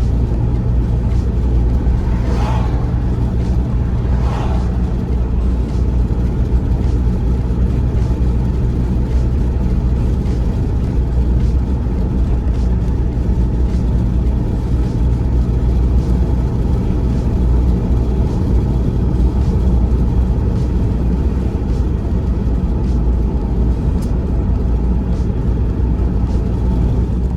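Steady car road noise heard from inside a moving car with the window down: a low rumble of engine, tyres and wind, with two brief swells a couple of seconds in.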